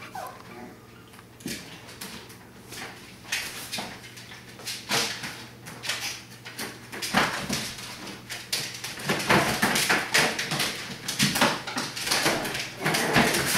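Six-week-old Schnoodle puppies' claws scratching and tapping on the plastic floor of a kiddie pool as they scramble about: irregular small scrapes and taps that get busier and louder in the second half.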